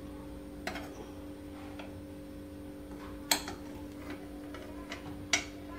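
Metal ladle clinking against the inside of a pressure cooker pot while stirring soup: a few scattered sharp clicks, two of them louder, over a steady low hum.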